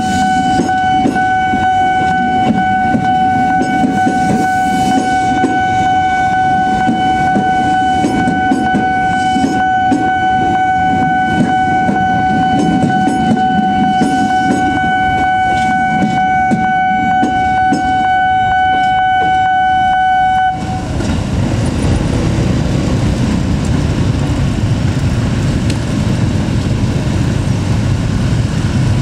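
A railroad level-crossing warning alarm sounds a steady electronic tone over the rumble of a KRL electric commuter train passing. The alarm cuts off suddenly about 20 seconds in, and the sound of waiting motorbike and vehicle engines takes over.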